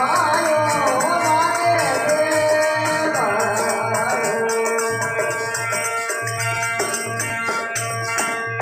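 Bhajan music: a steady beat of low drum strokes with shaking, rattling percussion, under a melody that bends in pitch for the first few seconds and then settles into held notes.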